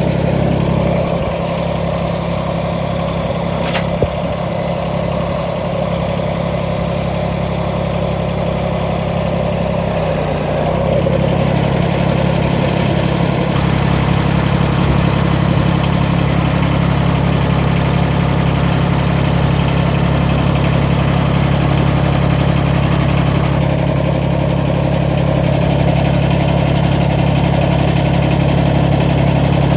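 Tractor engine running steadily. About ten seconds in its pitch shifts and it gets a little louder, as if it has been throttled up. There is one sharp knock about four seconds in.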